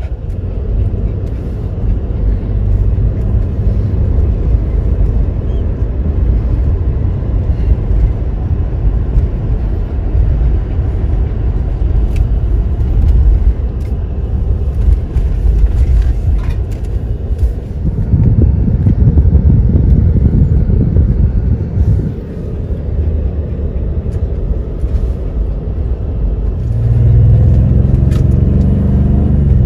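Road noise of a vehicle driving, heard from inside the cab: a steady low rumble of engine and tyres. Late on, the engine note gets louder and takes on a clear pitch.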